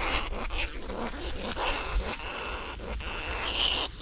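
A freshly trapped rat squealing in high, thin cries while it is handled, loudest near the end, over the rustling of a plastic sack and dry grass.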